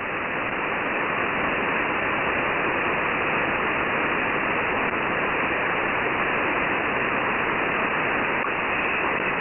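Shortwave receiver static: steady hiss on the open 11175 kHz HF-GCS single-sideband channel between transmissions, thin-sounding with nothing above about 3 kHz.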